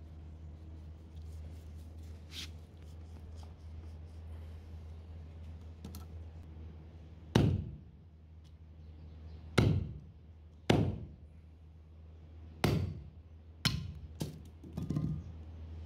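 A heavy cleaver chopping through a cow trotter's hoof and bone on a wooden log block: a faint knock early, then a series of sharp chops about a second or two apart through the second half.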